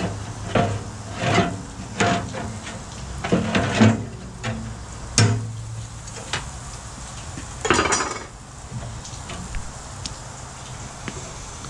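A metal tool scraping and knocking against a steel barrel BBQ pit as hot coals are raked and spread: irregular clanks and scrapes, with a longer scrape about eight seconds in, over a low steady hum.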